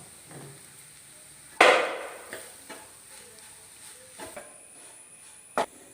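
A spoon stirring masala in a frying pan, with one loud knock against the pan about a second and a half in and a few lighter clicks after.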